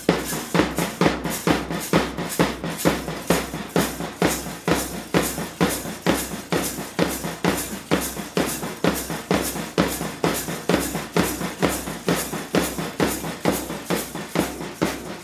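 A band of drummers plays a fast, even beat on marching side drums and a large bass drum, the deep thump of the bass drum falling with the strokes.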